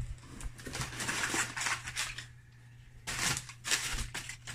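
Crumpled brown kraft packing paper crinkling and rustling as it is pulled out of a cardboard box, in two spells of a second or more each.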